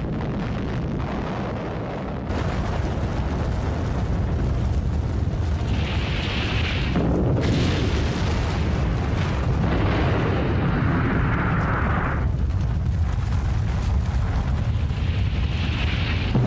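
Nuclear explosion blast: a long, deep, continuous rumble with rushing noise over it, growing louder about two seconds in.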